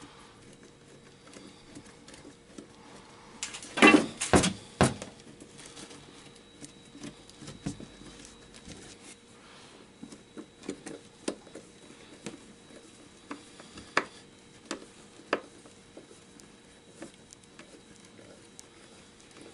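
Scattered taps, clicks and scrapes of a hand and screwdriver working inside a PVC pipe set in plywood, with a short cluster of louder knocks about four seconds in.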